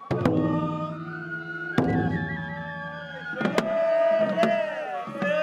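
Shrine festival music: a held, slightly wavering high melody over lower tones, cut by sharp strikes at irregular spacing.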